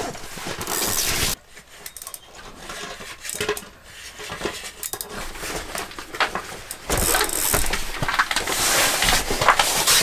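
Spinning reel being cranked to bring in a hooked lake trout, the reel's gears clicking and ticking under the hand, with clothing rustling close by. It is louder in the first second and again from about two thirds of the way through.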